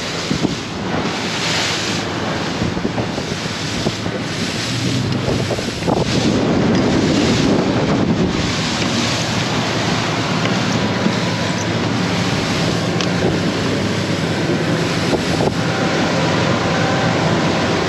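Wind buffeting the microphone and water rushing past the hull of a fishing boat under way at speed, with the steady drone of the boat's engine underneath. The gusts are strongest in the first few seconds.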